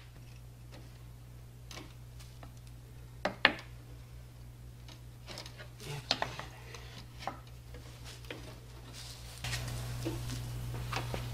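Scattered clinks and knocks of hard materials being handled as a flat board is set onto a stone support block under a cast-iron printing press; the loudest are two sharp knocks close together about three and a half seconds in. A steady low hum runs underneath and grows louder near the end.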